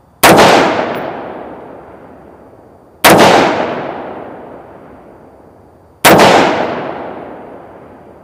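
Three single shots from an AR-15 rifle firing tracer rounds, about three seconds apart. Each crack is followed by a long echo that dies away over a couple of seconds.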